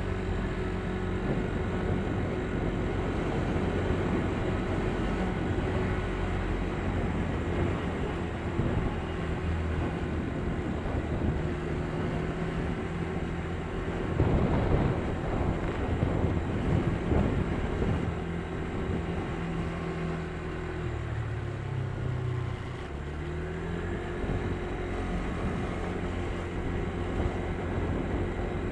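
Vehicle engine running steadily with road noise while driving, heard from the moving vehicle. About halfway through a louder rushing noise swells briefly. Past two-thirds of the way the engine note drops and then climbs again.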